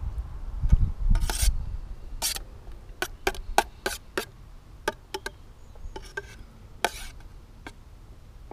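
Metal spoon scraping and clinking against the inside of an aluminium camping pan while beans are scooped out: about ten short scrapes and taps at an uneven pace, some with a faint metallic ring. A low rumble in the first second or so.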